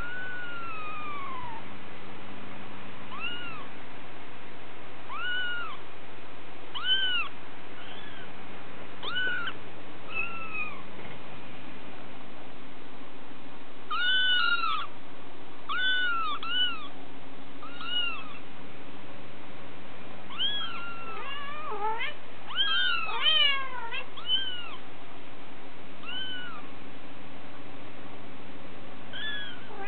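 Young kittens mewing: short, high-pitched meows every second or two, with a busier stretch of overlapping cries from both kittens about two-thirds of the way through.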